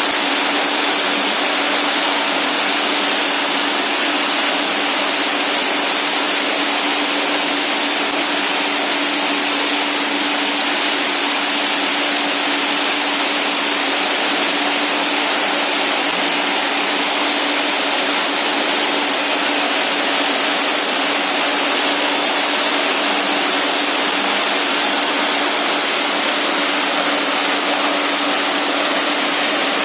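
PET bottle label separator and its feed conveyor running: a steady mechanical rush with a constant hum.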